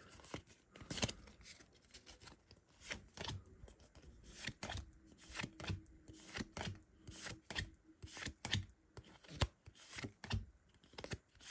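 Pokémon trading cards handled and flipped through one at a time from the back of a held stack to the front: a run of irregular short flicks and slides of card stock.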